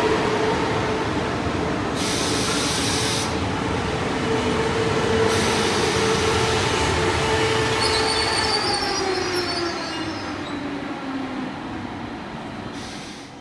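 An Alstom Coradia Polyvalent (Régiolis) TER multiple unit rolls past and away. Its running noise carries a steady whine that slides down in pitch as it recedes. There are two short spells of hiss, and a wavering wheel squeal comes about eight seconds in before the sound fades near the end.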